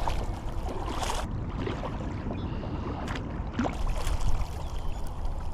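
Kayak paddling on a river: paddle strokes splashing and dripping, with wind buffeting the microphone.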